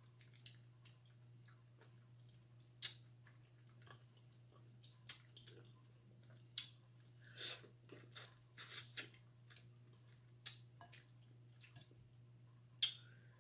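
Close-up eating sounds: scattered short, wet smacks and squishes as mussels and shrimp in butter garlic sauce are chewed and picked at with the fingers, about a dozen in all, over a faint steady hum.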